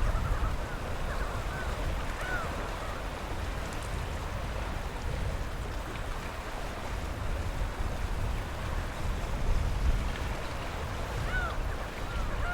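Steady low rumble of sea water washing, with a few short arching calls, the clearest just as it begins, about two seconds in and near the end.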